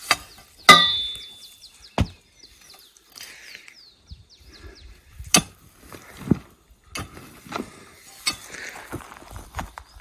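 Work on a fence post: a loud clank with a ringing metallic tail about a second in, then scattered knocks and clinks of a tool striking stone and wood.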